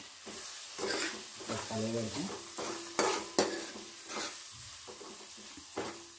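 Egg frying in oil with onions and green chillies in an aluminium kadai, sizzling steadily, while a metal ladle stirs it and knocks and scrapes against the pan several times.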